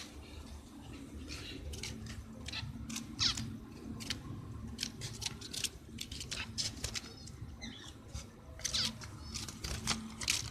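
Zebra finches in their cages giving many short, high chirping calls, scattered irregularly over a low steady hum.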